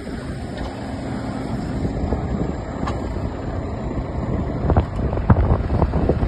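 JCB telehandler's diesel engine running as the machine drives up to a tyre, with wind buffeting the microphone. The buffeting grows stronger in the second half, with sharp gusts.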